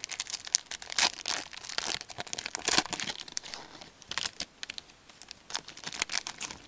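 Hockey card pack wrapper crinkling and tearing as the pack is opened by hand, in a run of irregular crackles loudest about a second in and again near three seconds.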